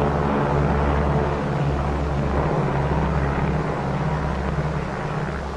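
Piston engines and propellers of a B-29 bomber droning as it flies off, the pitched drone giving way to a steady rushing noise that slowly grows fainter.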